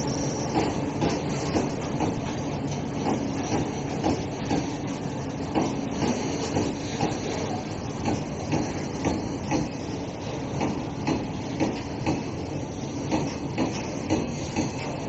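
Loaded open-top goods wagons of a freight train rolling past, a steady rumble with the wheels clacking on the rails about once a second.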